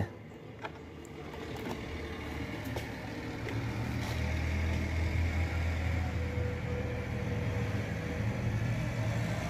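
A low, steady engine rumble that builds over the first few seconds and then holds, with one faint click about half a second in.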